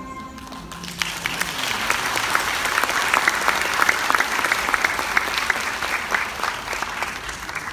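The last note of the music fades out about a second in and is followed by audience applause. The clapping swells to a peak around the middle and eases off near the end.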